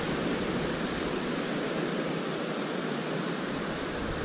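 Ocean surf washing onto the beach: a steady rushing hiss with no single wave standing out.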